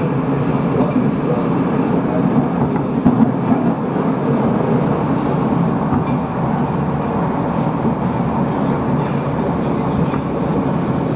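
Metro train running at speed through a tunnel, heard from inside the carriage: a steady rumble of wheels and traction motors. A faint high wheel squeal rises about four seconds in and fades out after about eight seconds.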